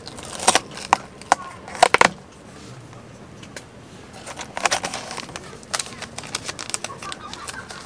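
A small cardboard coffee box being handled and opened by hand. Sharp clicks of the card come in the first two seconds, then a run of crinkling and rustling of packaging as the contents are pulled out.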